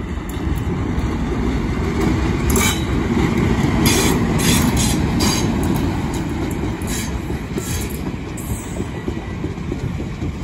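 Class 37 diesel locomotive passing close by with its English Electric V12 engine running, hauling two unpowered Class 466 electric units in tow: a loud rumble that swells to its loudest about four seconds in. A run of short sharp wheel clatters and squeals comes in the middle of the pass, then a steadier rumble as the towed coaches roll by.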